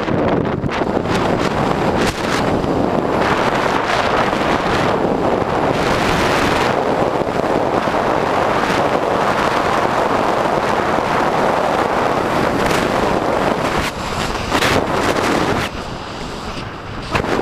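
Wind buffeting the microphone of a camera riding on an electric bike at speed: a loud, steady rushing noise that eases briefly a few times near the end.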